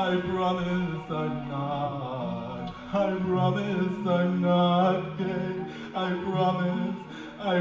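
A single voice singing in a chant-like way, in held notes grouped into short phrases that break every second or two.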